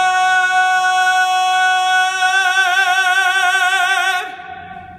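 A male tenor voice singing unaccompanied, holding one long high note: the final note of the song. It starts steady, develops a vibrato about halfway through, then stops suddenly a little after four seconds in, with a short echo dying away off the concrete of a parking garage.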